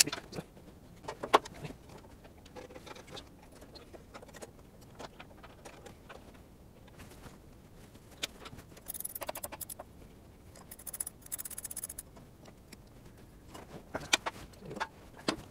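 Hand tools and cable clicking and clinking while a cable lug is crimped onto a starter cable: scattered sharp clicks, the loudest about a second in, and two short scratchy bursts around nine and eleven seconds in.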